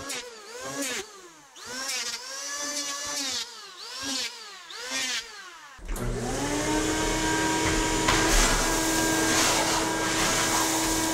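Electric hand planer planing wood, its motor whine rising and falling in repeated arcs about once a second. About six seconds in this gives way to a vacuum cleaner running steadily as it sucks up the planer shavings.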